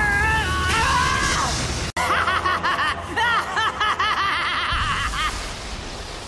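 A man's drawn-out strained shout, then, after a brief break, loud cackling laughter in quick rapid bursts, the villain's gloating laugh of an anime character.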